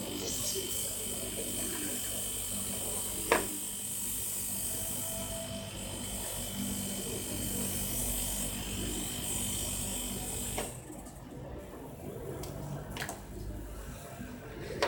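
Salvaged refrigerator compressor, repurposed as a tyre air pump, running with a steady electric hum and hiss, then cutting off abruptly about 11 seconds in. A sharp click about three seconds in.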